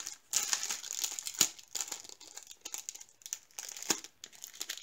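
Clear plastic packaging of a diamond-painting sticker kit crinkling as it is handled and turned over, in irregular sharp crackles, two of them louder than the rest.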